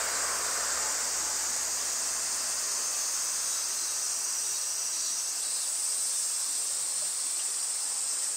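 A steady, high-pitched chorus of cicadas buzzing without a break.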